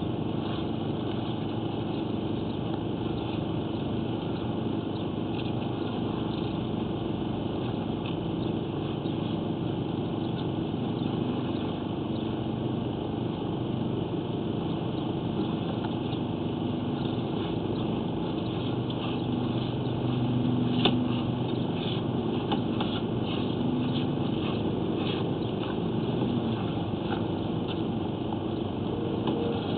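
A steady engine-like running noise with a low hum, with scattered light clicks and rattles, a cluster of them about two-thirds of the way through.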